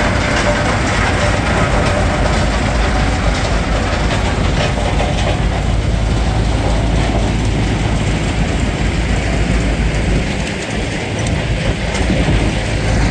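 A tracked RM crushing plant and a Tornado S5 recycling unit running together: a steady diesel drone with continuous clattering and rattling of crushed material, dipping briefly near the end.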